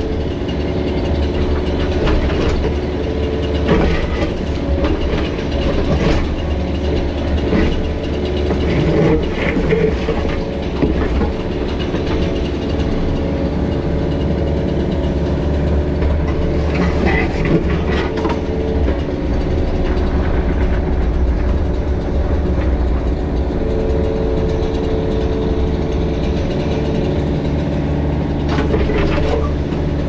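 Mini excavator's diesel engine running steadily under load as it works, with several sharp clanks and scrapes of the steel bucket against broken concrete slab.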